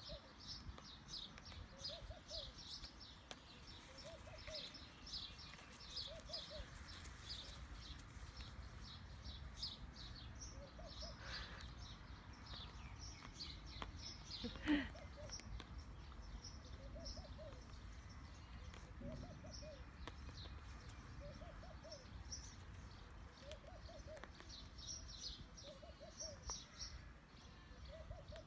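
Small birds chirping continuously, with a dove cooing softly every couple of seconds. One short sharp sound comes about halfway through.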